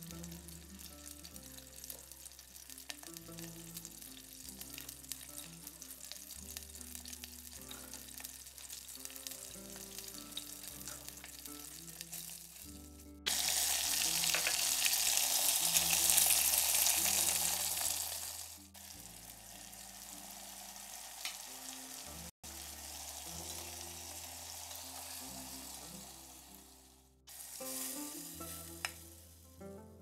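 Chicken pieces frying in a pot, sizzling under light background music. The sizzle turns much louder and fuller about halfway through, with diced onion in the pot, and drops back after about five seconds.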